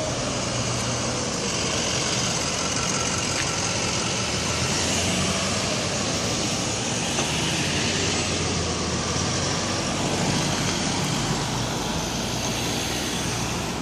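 A motorcade of vehicles, including a fire truck and white vans, driving past close by: engines running and tyres on the road in a steady traffic rumble.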